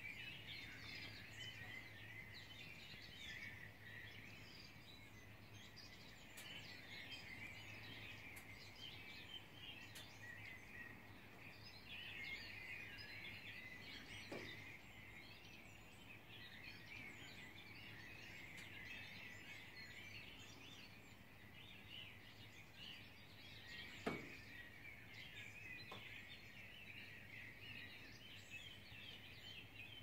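Faint chorus of many birds singing at once, heard from afar as a dense, unbroken mass of chirps, over a low steady hum. A single short knock stands out late on.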